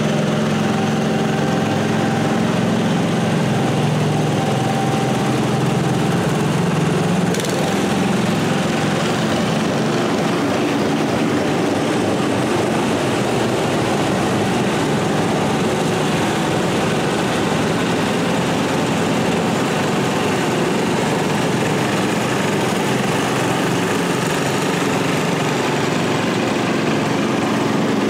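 Several small garden tractor engines running as the tractors drive past one after another, a steady engine drone. The pitch mix shifts as different machines pass, with a brief dip about seven seconds in.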